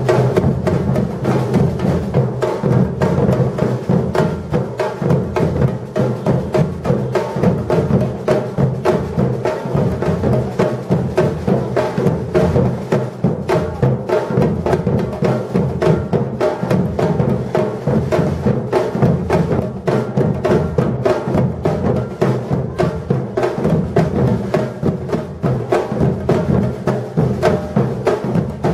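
Batucada drum ensemble playing a steady, driving rhythm: deep bass drums under a dense run of sharper drum strokes.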